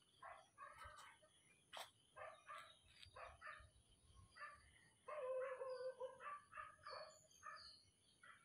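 Near silence, with faint, scattered short bird chirps and distant voices; the voices are a little louder about five seconds in.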